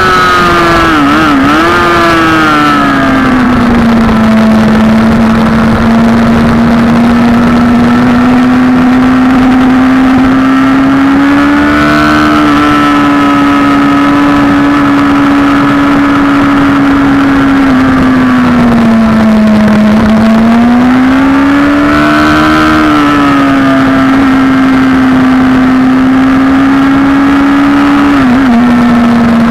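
Sport motorcycle engine running hard at high revs under steady throttle. The note falls early on, then holds high, swelling and dipping a few times with throttle through the bends, with a brief wobble near the end. Wind rushes over the microphone throughout.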